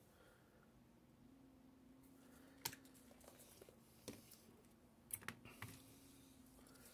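Faint, scattered clicks and taps of plastic miniatures on their bases being picked up and set down on a hobby desk, a few sharper ones about two and a half, four and five seconds in, over near silence with a faint steady hum.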